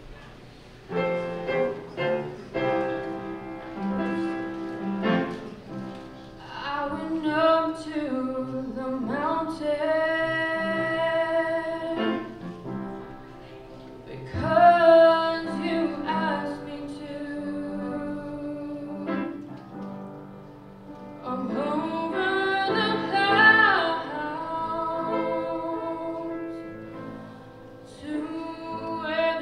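Middle school chorus performing a slow song, starting about a second in, with a featured girl soloist singing held, wavering notes over the accompaniment.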